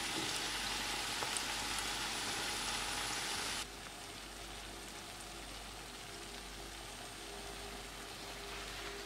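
Dough rounds frying in hot vegetable oil in a frying pan: a steady sizzling hiss with a few small pops. The sizzle drops suddenly to a quieter level a little under four seconds in.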